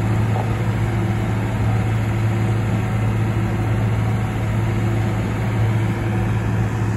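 Cat AP655D asphalt paver's diesel engine running steadily with a constant low hum as the paver crawls forward laying asphalt.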